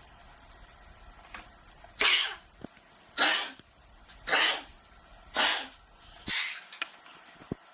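A dog coughing five times in a row, about a second apart, each cough a short breathy burst.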